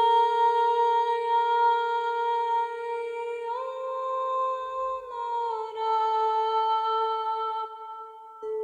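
A single voice humming long, steady held notes, stepping up in pitch about three and a half seconds in and back down about two seconds later. The note breaks off shortly before the end and a new one begins.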